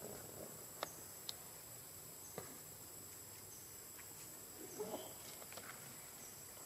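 Faint outdoor ambience with a steady, high-pitched insect drone, broken by a few soft clicks in the first half and a brief rustle about five seconds in.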